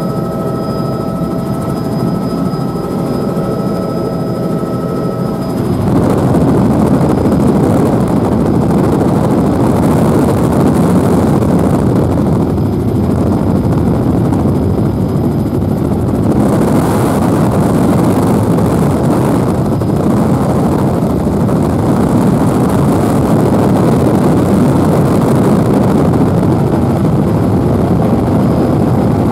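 Helicopter cabin noise in flight: a steady rumble of rotor and engine with a few faint steady whining tones. About six seconds in it turns louder and rougher, drowning out the tones.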